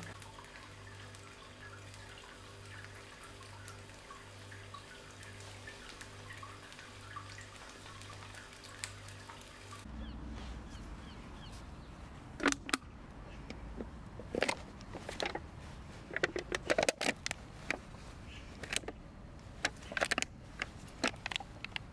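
Eggs frying in a pan on a gas hob: a soft crackling sizzle over a low, pulsing hum. About ten seconds in this gives way to a run of sharp, irregular crunches and clatters from a crushed drinks can among wet grass and fallen leaves.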